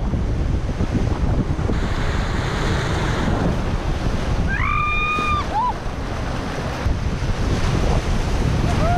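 Rushing, churning water of a trimaran's wake and waves breaking past the hull while sailing fast, with heavy wind noise buffeting the microphone. A short high-pitched cry rings out about five seconds in.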